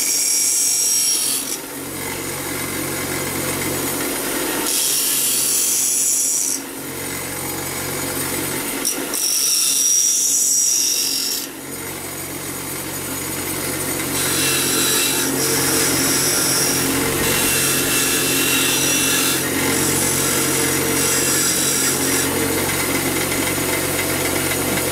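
Bench grinder motor running steadily while a steel bolt tip, held in locking pliers, is ground against the wheel into a cone shape. Three strong bursts of grinding come in the first dozen seconds, each a second or two long, then lighter, shorter bursts follow.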